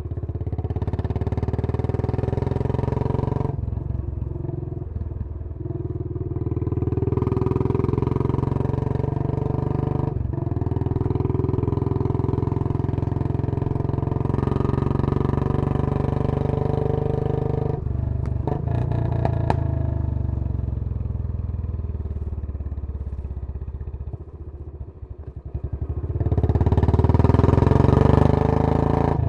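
Royal Enfield Bullet 500's single-cylinder four-stroke engine through a Punjab long bottle exhaust, heard from the moving bike. It pulls repeatedly, with short breaks in the note between pulls, and there are a few sharp ticks a little past halfway. It then eases off to a lower note before pulling hard again near the end.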